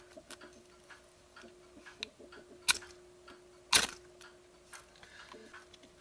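Small metal clicks and rattles of a metal oil match being handled, its wick rod and key-ring chain clinking against the body. Two sharper clacks about a second apart in the middle, the second the loudest.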